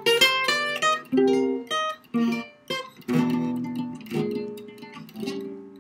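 Archtop guitar playing a chord-melody passage: a quick run of plucked notes, then ringing chords struck about once a second from around three seconds in, as the tune moves into B flat major.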